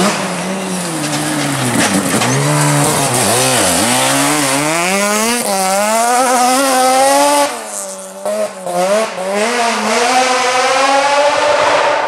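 Rally car engine revving hard on a gravel stage. The pitch dips and climbs with throttle and gear changes, rises steadily as it accelerates, drops off abruptly with a few stuttering breaks about eight seconds in, then climbs again.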